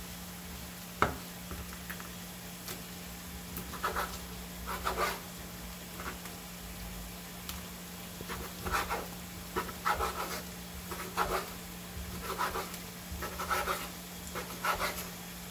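Kitchen knife cutting raw squid into strips on a wooden cutting board: a sharp knock about a second in, then a run of short cutting strokes about a second apart. A steady low hum sits underneath.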